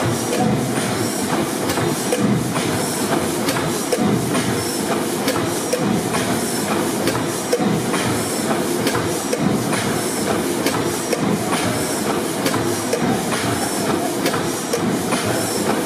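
600 HP Snow pipeline compressor gas engine, with its two double-ended, double-acting cylinders, running steadily. Its clicks and knocks repeat at an even beat over a constant hiss.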